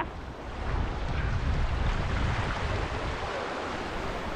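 Sea waves washing and splashing against a rocky shoreline, with wind buffeting the microphone in a low, gusting rumble.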